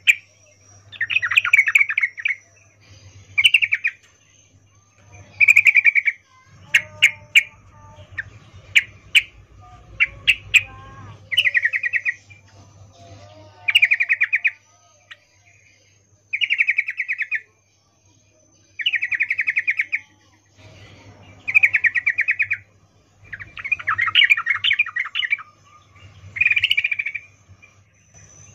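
Female yellow-vented bulbul (trucukan) giving short bursts of rapid chattering calls, about a dozen with brief pauses between them: the in-heat 'ngecuplik' call of a female calling a male. A few sharp clicks come between the calls in the middle.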